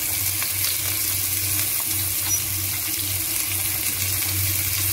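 Chopped onion and garlic sizzling in hot oil in a nonstick pan: a steady frying hiss with faint crackles, over a low steady hum.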